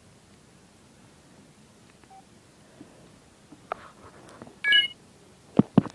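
A phone giving one short electronic beep of several tones about three-quarters of the way through, among a few sharp clicks and two knocks near the end; the first half is nearly quiet.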